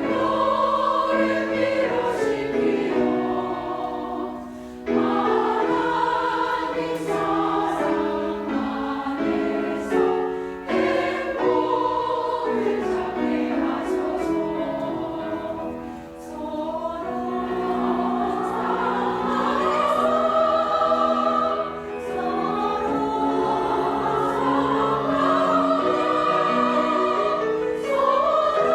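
A church choir singing a hymn in several parts, the voices holding and moving in harmony, with brief dips between phrases.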